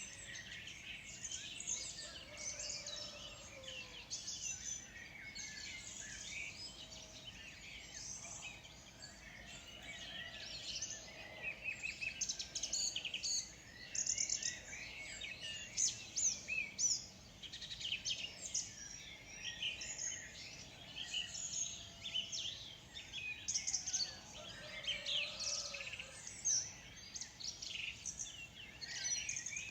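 Morning chorus of many songbirds chirping and singing over one another, a dense stream of high chirps and trills that grows busier and louder in the second half, with a lower call sliding down twice.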